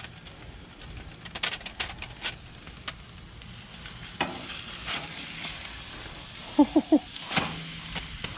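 Fish sizzling on a grill, with scattered sharp clicks. Near the end come three quick, loud squeaks.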